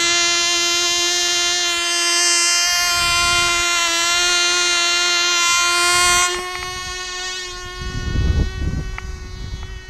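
Cox TD .010 glow engine on a tiny RC plane running flat out with a high, steady buzzing whine, only about 22,000 rpm rather than the usual 30,000 on this fuel. About six seconds in the sound drops away as the plane flies off, with a low rumble on the microphone shortly after.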